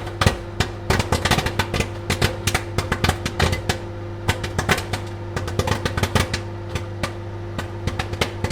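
Popcorn kernels popping: many quick, irregular pops, thickest in the middle and thinning toward the end, over a steady low hum from the appliance.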